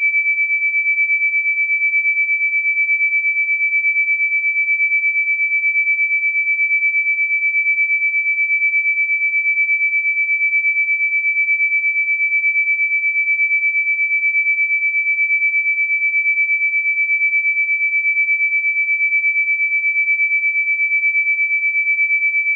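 A steady, high-pitched pure electronic tone held at one pitch, swelling slightly in loudness at an even pace.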